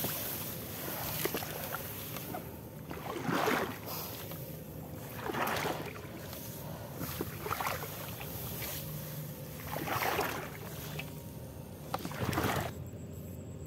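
Shallow water splashing and sloshing in repeated swishes about every two seconds, as the electrofishing pole is pushed through a flooded rice paddy and the fisher moves through it.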